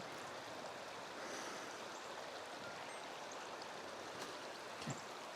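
Faint, steady rush of flowing river water, with one soft low knock near the end.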